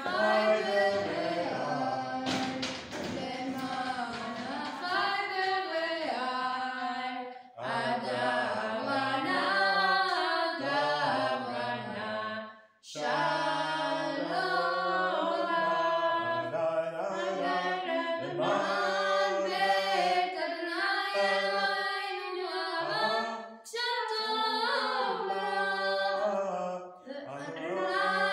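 A boy chanting Hebrew prayers to a melody, unaccompanied, in long phrases of held notes with brief breaks between them.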